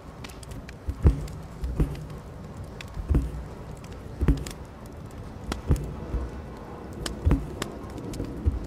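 Embroidery needle punching through cotton fabric stretched tight in a hoop: seven sharp taps with a dull thump, about a second apart, as stitches are pushed through and the thread drawn after them.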